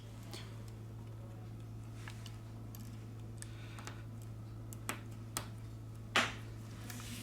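Scattered small clicks and taps of tools and parts being handled while a Samsung Galaxy A30s smartphone is reassembled, the sharpest click a little after six seconds in, over a steady low hum.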